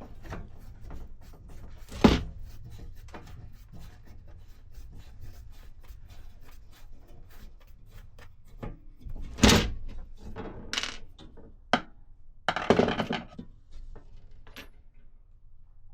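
Small metal clicks and rattles as the last screw is worked free, with a sharp knock about two seconds in and a cluster of louder clunks and scraping clatters in the second half as a panel is pulled loose from the compartment.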